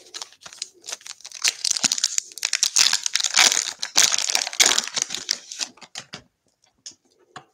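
A trading card pack's foil wrapper is torn open and crinkled by hand: a dense run of crackling that stops about six seconds in. A few faint clicks follow.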